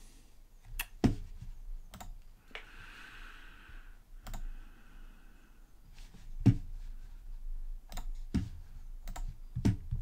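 Scattered clicks of a computer mouse, about nine at irregular intervals, a few with a low knock.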